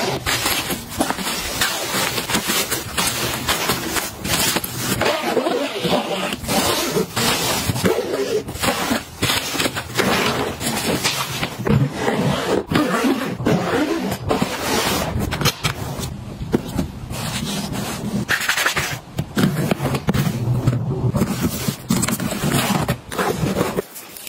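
Close-up packing sounds: rustling fabric and mesh, scraping and knocking of a hard-shell suitcase being handled, and a zipper drawn around its lid, followed by a soft tote bag being opened and handled.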